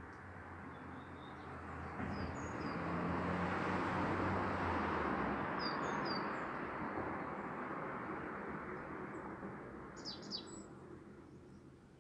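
Small birds chirping now and then, with a quick run of chirps about ten seconds in. Underneath, a broad rushing noise with a low hum swells over the first few seconds and slowly fades.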